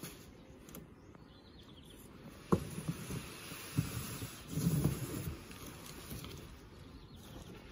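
Handling knocks and thuds as a large, thin rockface wall panel is lifted out of its cardboard box: one sharp knock, a few lighter knocks, then a cluster of dull thuds.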